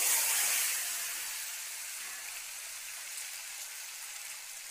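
Boiled eggs frying in hot oil in a kadai. The oil sizzles loudly as the eggs hit it, then eases within a second or two to a steady sizzle.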